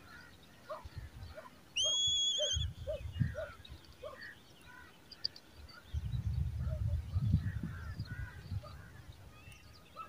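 Eagle chicks calling in the nest: short repeated notes, two or three a second, through the first four seconds, with one loud, shrill, steady whistle about two seconds in. A low rumble follows from about six to eight seconds.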